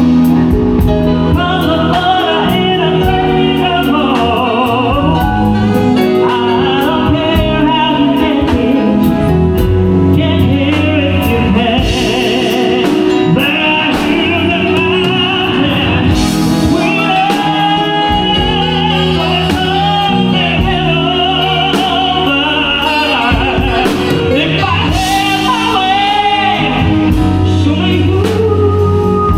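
A band playing a song with a singer, sustained vocal lines over a steady, full backing, during a sound check.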